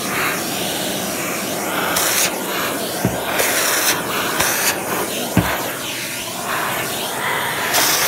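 Central vacuum running, its hose nozzle sucking along a carpet edge, with the rush of air shifting in pitch as the nozzle moves. Two short low knocks come about 3 and 5 seconds in.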